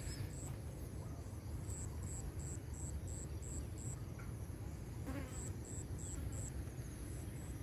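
An insect chirping: short, high-pitched pulses repeating evenly about three times a second, in runs of several pulses, over a low steady rumble.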